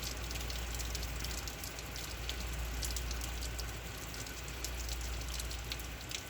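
Heavy rain falling steadily, a dense patter of many fine drop ticks over a constant hiss, with a low steady rumble underneath.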